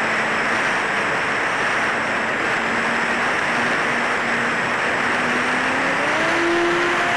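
Electric motor and propeller of a HEEWING T2 Cruza VTOL RC plane running in flight, under a loud, steady rush of air. The faint motor tone rises in pitch about six seconds in.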